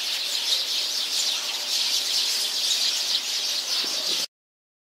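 A flock of Eurasian tree sparrows chirping in a dense, continuous chorus that cuts off suddenly a little over four seconds in.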